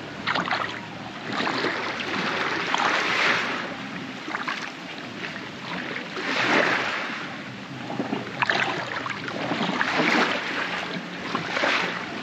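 Shallow seawater sloshing and splashing in uneven surges every second or two, as a fish is gutted and rinsed in the water.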